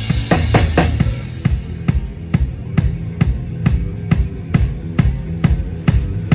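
Drum kit played in a steady beat of kick and snare, about four to five hits a second, during a band sound check; cymbals ring in the first second and then drop out. Low steady tones sit underneath the drums.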